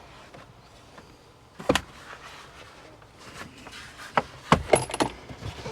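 Clicks and knocks of plastic interior trim being handled and pried on a Ford Bronco: one sharp knock about a second and a half in, then a quick cluster of clicks and knocks near the end.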